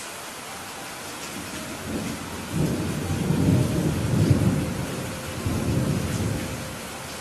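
Heavy rain falling steadily, with a low roll of thunder that swells about two seconds in and dies away shortly before the end.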